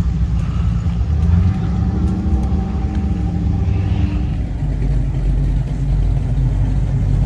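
Low, steady rumble of classic car engines running, with a few steady engine tones rising above it in the first few seconds.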